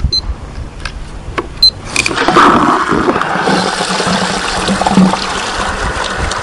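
A digital timer beeps twice as it is started. About two seconds in, water starts rushing steadily as garden-hose pressure drives a homemade PVC siphon pump, drawing water out of a 5-gallon pail and discharging it into another pail.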